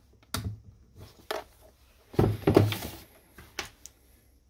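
Hands handling a test meter and small electronic parts: a sharp click about half a second in as a switch on the meter is pressed, a few lighter clicks, then a louder stretch of knocks and rustling between about two and three seconds.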